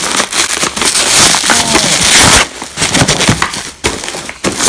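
Plastic bubble wrap being pulled open and crumpled by hand, making a loud, dense crackling. The crackling is continuous for about the first two and a half seconds, then comes in scattered crackles.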